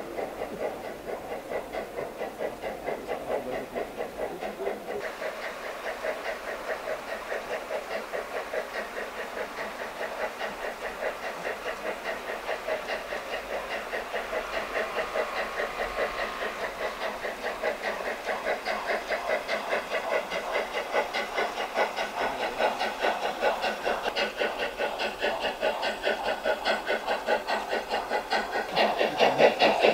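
Garden-railway model of a Harz narrow-gauge steam locomotive chuffing in a quick, even rhythm with a steady hiss, getting louder near the end.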